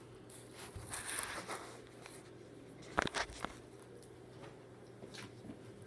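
Handling noise from the camera being moved into position: a rustle about a second in and a few sharp clicks and knocks about three seconds in, over a steady low hum.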